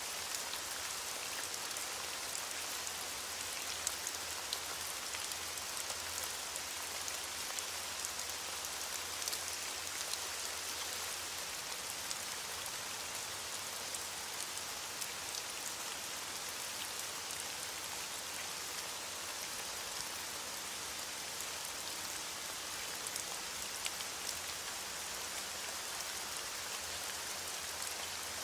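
Steady rain falling, with the hiss of a heavy shower and scattered sharper drop ticks on surfaces.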